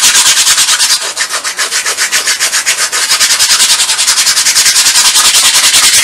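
A nail file rubbed rapidly back and forth over a glittered, painted craft truck cutout, sanding the glitter off. Fast, even scratching strokes, about seven a second, a little softer between about one and three seconds in.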